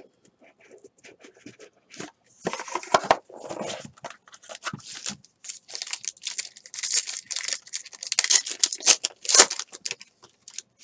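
A trading-card pack's wrapper being torn open and handled, giving irregular crinkling and tearing rustles. There is a light handling sound of the box first, and the crackling gets busier from about two seconds in.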